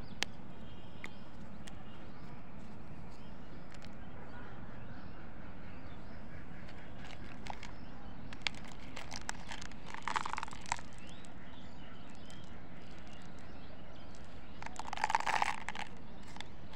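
Hands handling a plastic candy cone pack with a foil lid: scattered small clicks and two short crinkling bursts, the louder one about 15 seconds in as the foil lid is peeled, over steady background noise.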